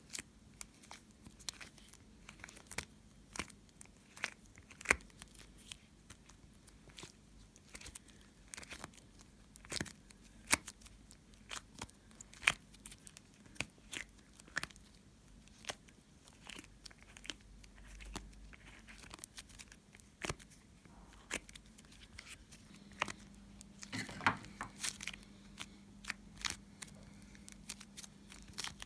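Homemade slime being squeezed and stretched by hand, giving irregular sharp clicking pops of trapped air, one or two a second.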